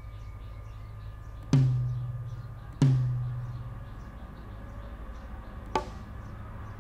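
Single drum hits from the Addictive Drums 2 plugin, each sounding as a note is clicked into FL Studio's piano roll: two alike hits with a low ringing tail about a second and a half and three seconds in, then a shorter, sharper hit near the end.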